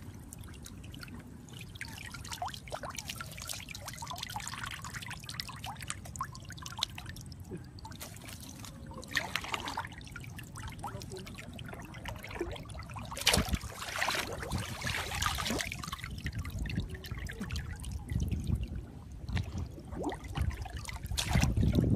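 Water trickling and dripping from a net-covered wire fish trap as it is lifted and handled, with scattered small splashes and knocks; the loudest knock comes a little past halfway.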